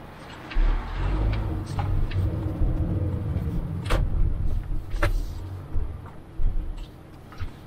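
A car heard from inside its cabin while driving: a low rumble of engine and tyres as it pulls through a turn, with two sharp knocks about four and five seconds in, settling to a quieter hum near the end.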